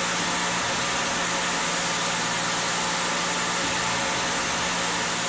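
Tormach 770 CNC mill running a light parallel finishing pass with a small end mill, skimming excess cured superglue off a metal part: a steady hiss with a faint low hum.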